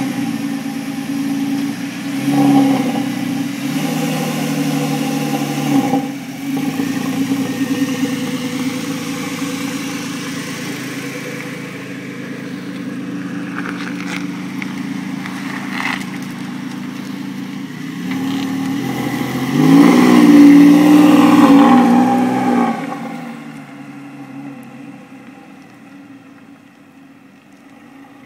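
Porsche 996 Carrera 4S flat-six with sport exhaust running just after starting: blipped twice in the first six seconds, then idling steadily. About 20 seconds in it is revved hard for about three seconds, the loudest part, then fades away as the car leaves.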